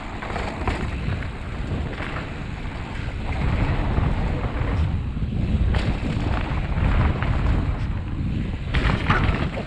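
Wind rushing loudly over the microphone during a fast mountain-bike descent on a dirt trail, with the bike's rattle and a few sharp knocks from bumps; the rush swells about a third of the way in as speed picks up.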